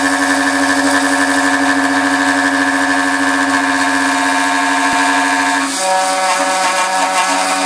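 Homemade high-speed spindle on a CNC router milling 7075 aluminium with a small end mill: a steady machine whine of several tones over cutting noise. About six seconds in, the tones jump to different pitches.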